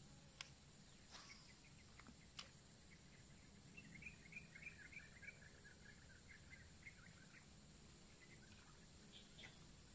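Faint birdsong: a quick run of chirps for a few seconds mid-way, over a steady high hiss. A few sharp clicks come in the first couple of seconds.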